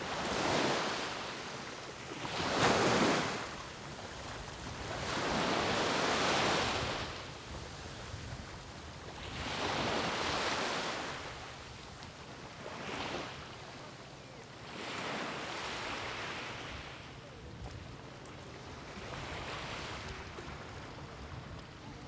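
Sea waves breaking on a beach: about seven swelling surges of surf, each rising and washing away over a few seconds. The loudest crash is about three seconds in.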